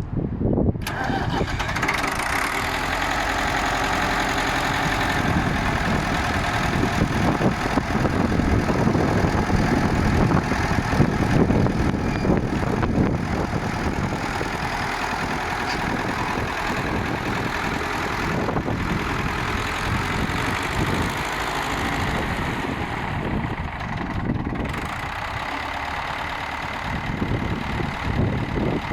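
Ford 5000 tractor's four-cylinder engine running steadily.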